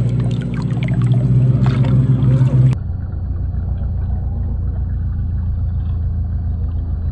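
A 1/10 scale RC crawler driving off-road, its electric motor and gear drive giving a steady drone with sharp clicks and crackles. About three seconds in, the sound switches abruptly to a steady, muffled low rumble.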